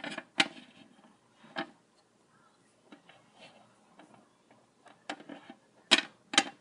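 A scatter of sharp, irregular clicks and taps, with a few loud ones near the start, sparse faint ones in the middle, and a quick cluster of loud ones near the end.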